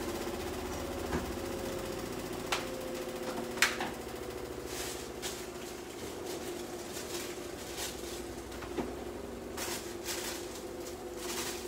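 Steady mechanical hum of a kitchen appliance, with a few sharp knocks and short clatters of kitchen utensils.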